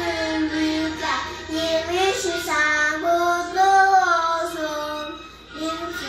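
A young girl singing solo, holding long notes with a slight waver, with a short break for breath about five seconds in.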